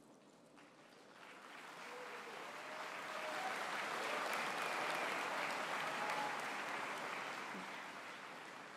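Large audience applauding: the clapping starts softly about a second in, swells to its loudest around the middle and fades toward the end.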